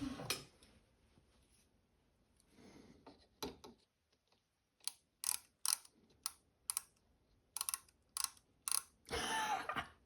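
Scattered sharp clicks and light rattles of small metal tools and parts being handled at a milling machine, with a quick run of about a dozen clicks in the second half and a short scraping rustle near the end.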